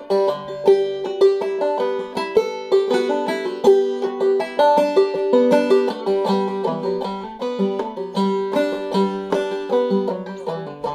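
Banjo played clawhammer style in open G tuning, a Québécois reel. A quick run of plucked melody notes keeps returning to a high drone note from the short fifth string.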